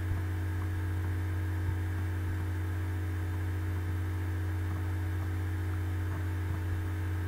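Steady low electrical hum, like mains hum picked up in the recording, with no other clear sound.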